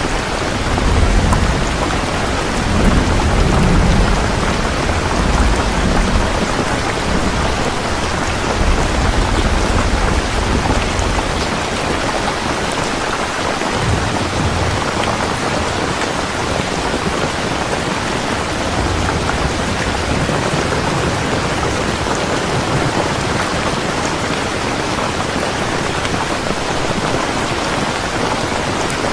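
Heavy rain falling steadily, with rolling thunder rumbling low in the first half and fading out.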